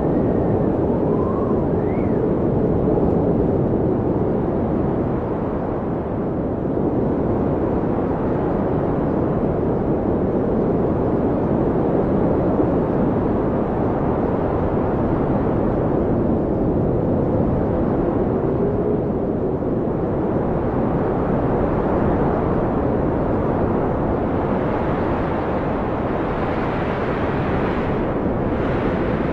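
Blizzard wind blowing steadily with a deep rushing sound and a few faint whistling howls that rise and fall in pitch, turning hissier near the end.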